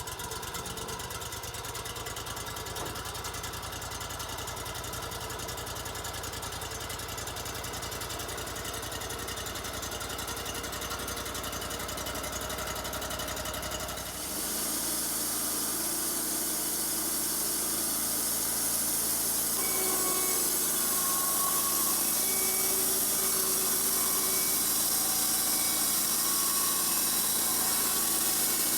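Wood-Mizer LT-35 portable sawmill running steadily. About halfway through the sound changes and grows louder, with a strong high hiss joining the machine noise.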